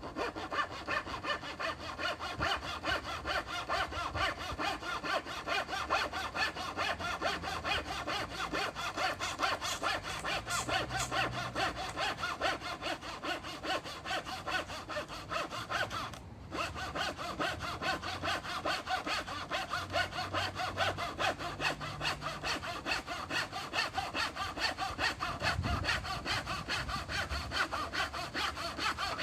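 Small hand saw cutting through pallet wood in steady back-and-forth strokes, with a short pause about halfway through.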